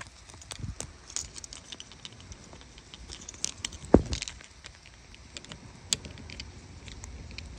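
Handling noise of small plastic parts, a cooler drain plug and gasket, being picked up and turned in the hand: scattered light clicks and rattles, with one louder knock about four seconds in and a sharp click near six seconds.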